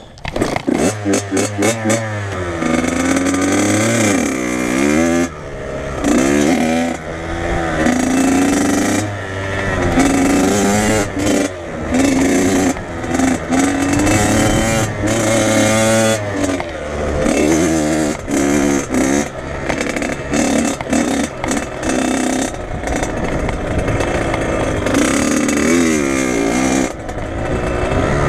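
Dirt bike engine revving up and dropping back again and again while being ridden, its pitch rising and falling in repeated sweeps, broken by many brief cuts of the throttle.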